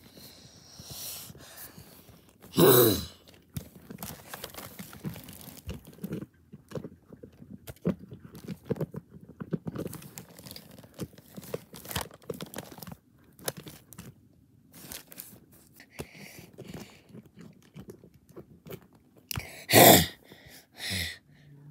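Plastic animal figures being handled and knocked about on a carpet: a run of small clicks, scuffs and rustles. Twice, about three seconds in and near the end, a short loud cry from a person's voice.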